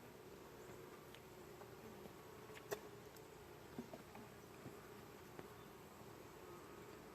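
A colony of honey bees buzzing as a steady low hum from the open hive, with a few faint clicks from the frames being handled, the clearest a little under three seconds in.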